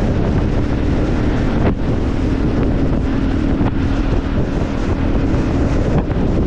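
Wind rushing over the microphone of a motorcycle at speed, with the steady hum of its engine underneath.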